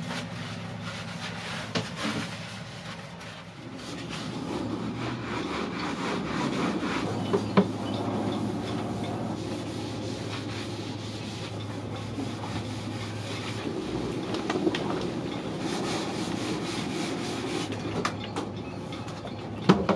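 Scrubbing and rubbing on the boat's cabin surfaces, a steady rough scrape, with occasional sharp knocks of wood and gear being moved; one knock is louder, about seven seconds in.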